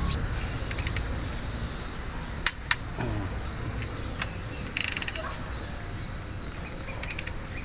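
Torque wrench ratcheting in short runs of clicks while cylinder head bolts are tightened on the first pass to 30 foot-pounds, with a single sharper click about two and a half seconds in.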